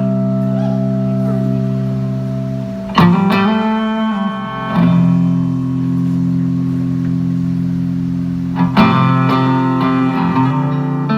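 Live band music led by guitar: held chords ring out, with new chords struck about three seconds in and again near the end.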